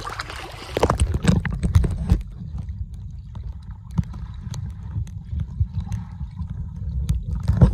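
Splashing, then muffled pool water heard with the microphone under the surface: a dense low churning with scattered knocks from a child kicking and swimming underwater. A louder splash comes near the end as the microphone breaks the surface.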